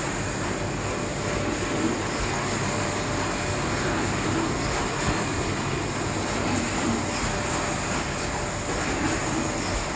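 Steady machine noise of a bottled-water packing line running: belt and roller conveyors and a shrink-wrap tunnel, with a faint steady hum.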